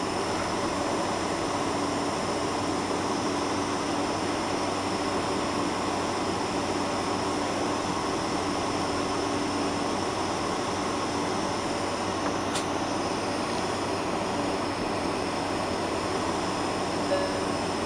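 Steady cabin noise inside a Boeing 747-400 over the wing while it taxis: an even hiss and hum from the engines and the air conditioning, with a faint steady tone under it.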